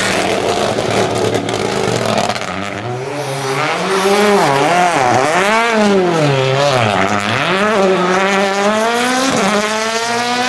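Rally car engine at high revs, then revved hard up and down several times in a row, its pitch swinging over and over, with some tyre squeal. Near the end a rally car accelerates, its engine note rising steadily.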